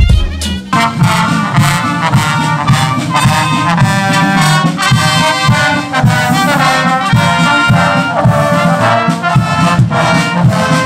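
Military marching band playing a brass march, with trumpets, trombones and tubas over a steady beat.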